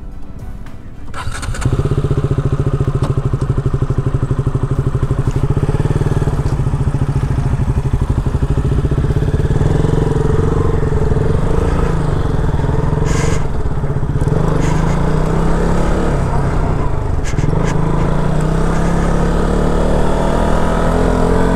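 A KTM Duke 200's single-cylinder engine comes to life about a second and a half in and runs with a steady pulsing note. The bike then moves off: the engine note rises, dips briefly twice as the rider changes gear, and climbs again near the end.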